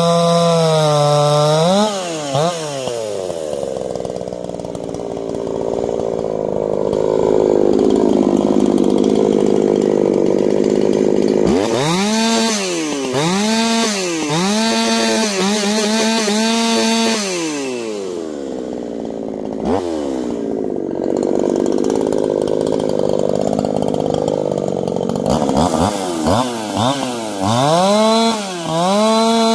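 New G372XP two-stroke chainsaw being broken in. It runs at full throttle in a cut, then drops to a rough idle. From about 11 seconds in it is revved up and down over and over, idles again, and is revved a few more times before settling back at full throttle in the wood near the end.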